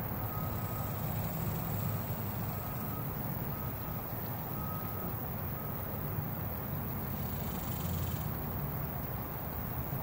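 Steady low engine rumble of a vehicle running nearby, with a faint beep repeating about once a second through the first half, in the pattern of a reversing alarm.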